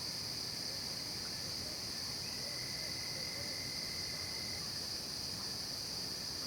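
Night chorus of crickets and other insects: a steady, unbroken high-pitched trill. A faint thin tone sounds for about two seconds midway.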